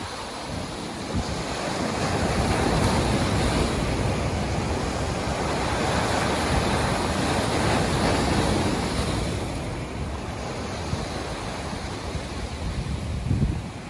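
Ocean surf: a wave surge that builds about two seconds in, holds loud for several seconds, and eases off near the ten-second mark. Wind buffets the microphone with a low rumble throughout.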